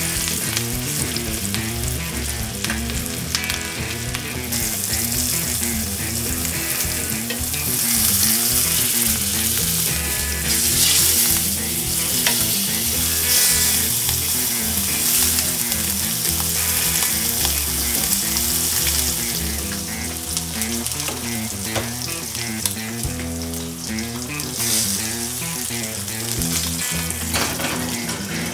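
Rack of lamb searing in butter and olive oil in a cast-iron skillet, a steady frying sizzle that grows louder for a stretch in the middle.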